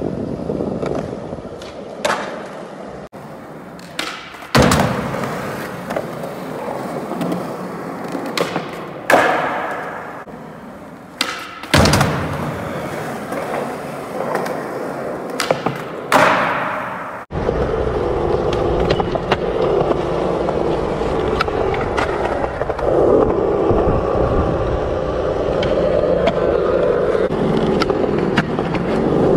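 Skateboard wheels rolling on concrete, broken by several sharp clacks of the board popping and landing as tricks are done. In the second half there is a steadier rolling noise.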